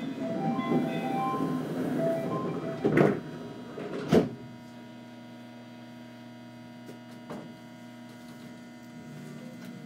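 A string of short electronic chime tones over the first two seconds or so, then two sharp knocks about three and four seconds in, followed by the steady hum of the stopped Tokyo Monorail train and station equipment.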